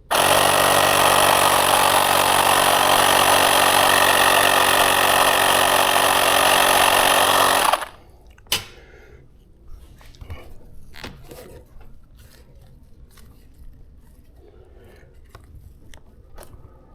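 Portable electric tire inflator running steadily for about eight seconds, pumping air into an e-bike inner tube, then cutting off suddenly. A few light clicks and handling noises follow.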